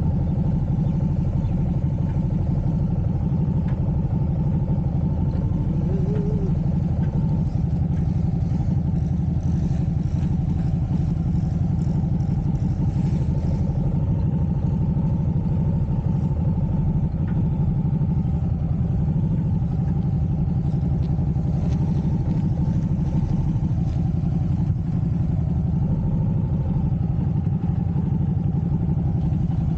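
Cruiser motorcycle engine running at low, steady revs while the bike is ridden slowly, weaving between markers.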